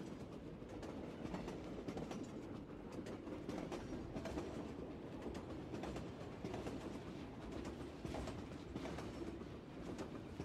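Train running on rails: a steady low rumble with faint scattered clicks of the wheels.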